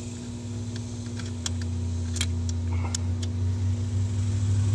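A few light, sparse metallic clicks as 13 mm nuts are worked loose by hand on a truck's seat-mounting studs, over a steady low hum that grows slowly louder.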